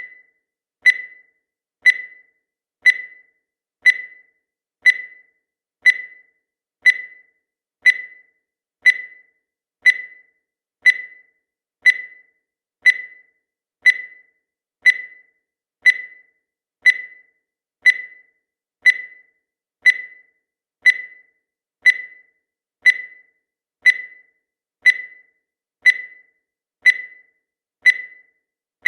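Countdown timer sound effect: a short, high beep once every second, each one dying away quickly, in a perfectly even rhythm.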